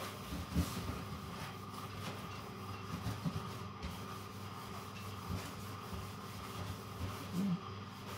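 Sponge rubbing cream cleaner over a stainless steel sink to polish it, with a few light knocks, over a steady low hum.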